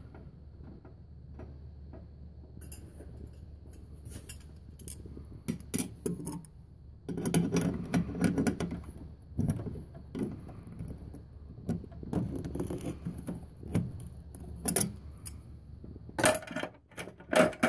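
Pliers bending the tail of a No. 6 copper ground wire down and around a cold-water-pipe ground clamp: irregular metal clicks, clinks and short scrapes of the tool against the wire, clamp and screws.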